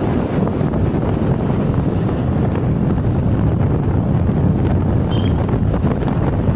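Steady wind buffeting the microphone, heard as a low rumbling noise.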